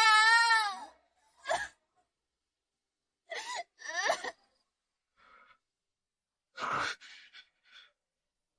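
A woman's wailing cry trails off, then breaks into a string of short sobbing gasps and shaky sighing breaths.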